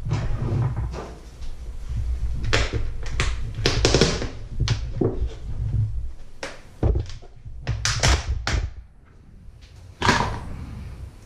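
Large plastic tub being handled and its lid worked open and pressed shut: a run of plastic clicks, knocks and rubbing over a low handling rumble, with a sharp knock about ten seconds in.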